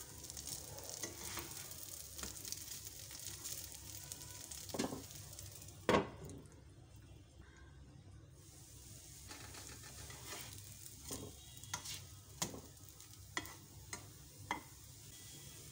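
Potato-and-egg rings frying in butter in a nonstick pan, a steady sizzle. About six seconds in there is a sharp knock, and the sizzle turns dull for a couple of seconds. Near the end a spatula clicks and taps against the pan several times.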